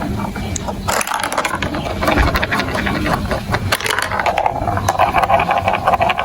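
Marbles rolling and clattering along plastic marble-run tracks: a steady rolling sound with many quick clicks, busier in the second half.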